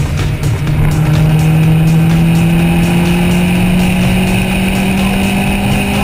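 Peugeot 207 RC's tuned 1.6-litre turbocharged four-cylinder through a non-resonated Milltek turbo-back exhaust, pulling steadily with its note climbing slowly and evenly as the car accelerates, then dropping right at the end.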